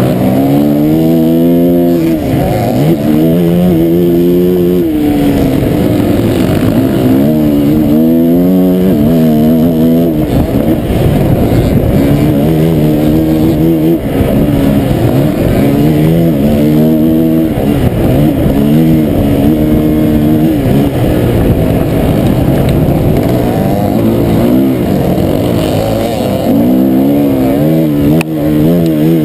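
Motocross dirt bike engine heard from on board, revving up and dropping back again and again as the rider accelerates, shifts and backs off through the turns.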